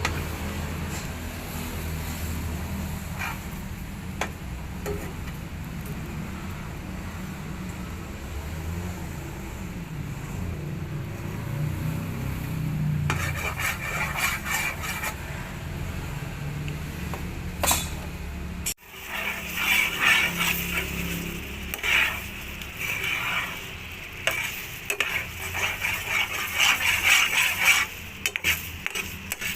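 Kalumpit fruit cooking with sugar in a pan, sizzling while it is stirred and scraped against the pan. After an abrupt break a little past halfway, the stirring strokes come louder and more often.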